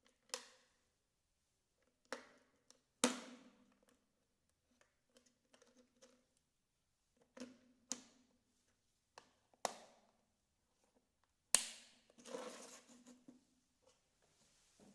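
Small hard parts of a toy car being handled during a repair: about eight sharp clicks and knocks at irregular intervals, the loudest about three seconds in and again past the middle.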